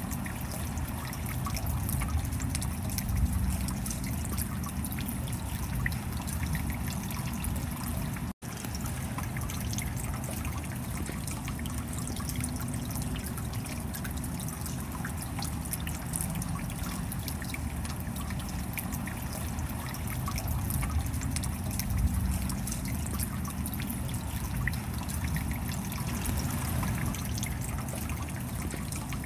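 Stream water running over rocks in a small cascade, a steady splashing rush with no pauses. The sound drops out for a split second about eight seconds in.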